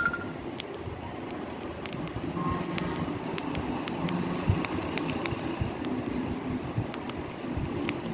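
Samsung CDMA flip phone giving a short key-tone beep at the start, then scattered faint button clicks and a brief tone as its sound menus are scrolled, over a steady low background rumble.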